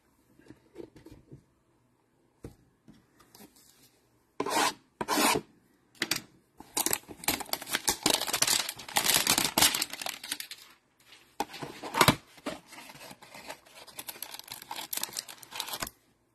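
A cardboard Prizm trading-card hanger box being torn open and its stack of cards slid out. There are two short rips about four and five seconds in, then a long stretch of cardboard and paper rubbing and scraping, with one sharp rip around twelve seconds.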